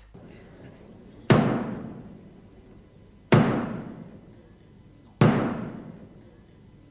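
Three heavy booming hits about two seconds apart, each ringing on and fading away over a second or so.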